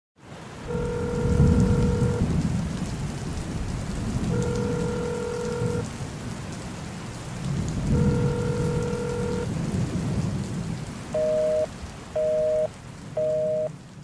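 Intro of a pop song: steady rain with low rumbles of thunder, under three long held notes and then three short notes about a second apart near the end.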